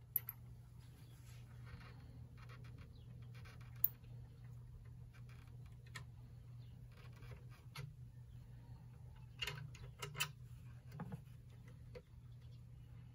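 Faint clicks and small knocks as a ukulele's tuning pegs are handled and fitted into the wooden headstock, with a quick cluster of louder clicks about nine to ten seconds in, over a low steady hum.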